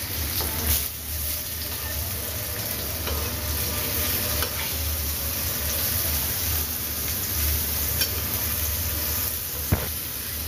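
Jackfruit-seed fritters sizzling steadily in shallow oil in a frying pan, with a spatula scraping and tapping against the pan as they are turned. One sharp tap near the end.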